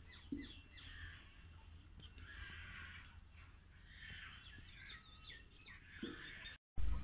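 Faint bird chirping: many short, quick chirps that rise and fall in pitch, over a low steady background hum.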